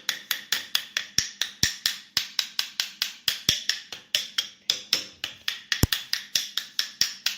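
Rapid light tapping on the electric fan motor's shaft and bushing, about five or six sharp metallic taps a second, to ease a tight shaft free.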